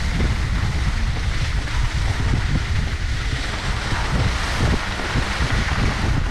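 Wind rushing over the microphone of a skier's camera, with the steady hiss and scrape of skis sliding over packed snow.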